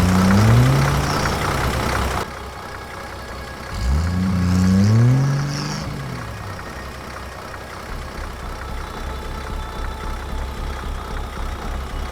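Tractor engine revving up twice, its pitch rising and then levelling off, then settling into a low, pulsing idle about two-thirds of the way in.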